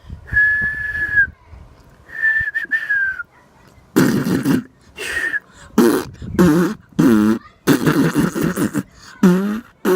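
A person whistling two single held notes, each about a second long, the second dropping in pitch at its end. From about four seconds in comes a run of short, loud silly vocal noises.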